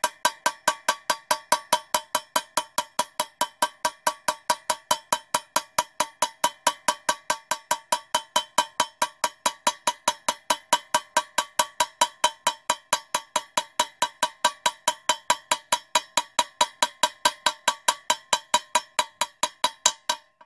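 Rapid, even hammer taps driving a new wheel bearing into a Suzuki DR650's rear wheel hub, about five a second, each tap a short metallic ring. The bearing went in crooked and is being tapped around its edge to seat it.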